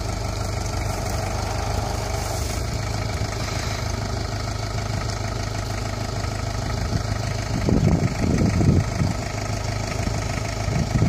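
ISEKI farm tractor's diesel engine idling steadily, with a few short louder irregular sounds from about two-thirds of the way in.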